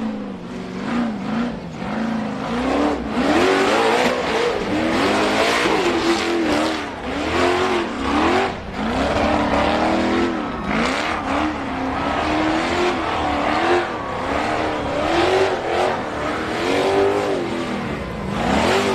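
Off-road 4x4 engine revving hard over and over, its pitch rising and falling about once a second, over a rough rush of noise.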